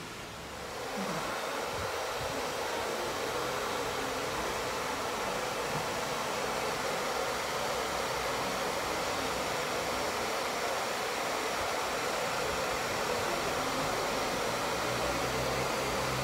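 Hand-held hair dryer blowing warm air through a soft bonnet dryer attachment over wet hair. A steady rush of air that starts about a second in and holds evenly.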